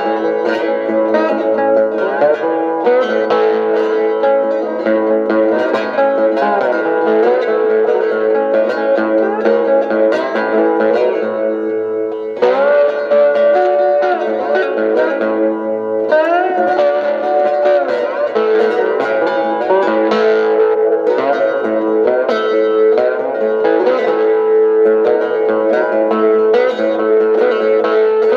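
Cigar box guitar played solo in a twangy chicken-pickin' country-blues style: quick plucked single notes over steadily ringing lower strings, with some notes sliding up and down in pitch.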